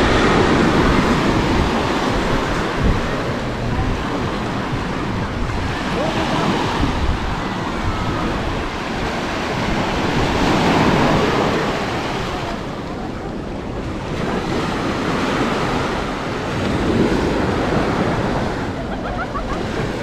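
Sea waves breaking and washing up a sandy beach, the surf swelling and fading every several seconds, with wind buffeting the microphone.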